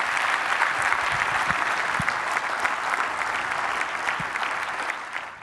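Audience applauding steadily with dense clapping, cut off abruptly at the end.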